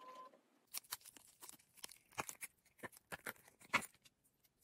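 Hands handling a cured resin piece and its silicone mould: a run of irregular sharp clicks and crackles for about three seconds, then quiet.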